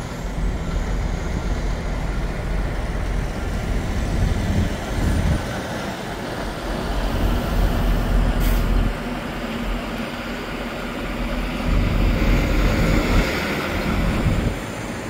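Semi-truck diesel engine running as a tractor-trailer drives slowly past, the low rumble swelling and easing, with a brief hiss about eight and a half seconds in.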